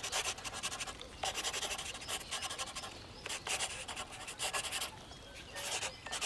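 Pencil sketching on paper: quick scratchy strokes in runs of a second or two, with short pauses between them.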